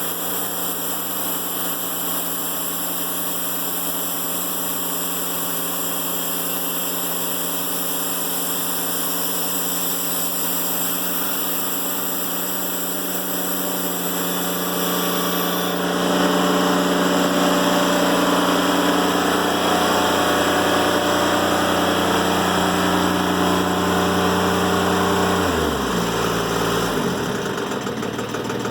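Timberking 1400 band sawmill running steadily through a cut in a black locust log. The sound gets louder about halfway through, and near the end the engine's pitch falls quickly as it slows.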